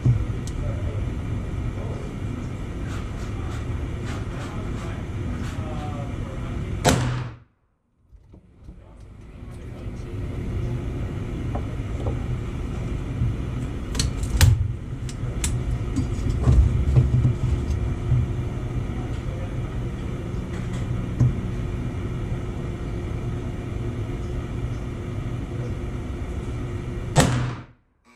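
Steady low outdoor rumble of shooting-range ambience with a few sharp cracks, two close together about halfway through. The sound cuts out abruptly about a quarter of the way in and fades back up.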